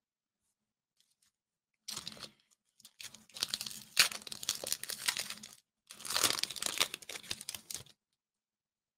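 Foil Pokémon booster pack being torn open and its wrapper crinkled by hand, in three crackly stretches starting about two seconds in.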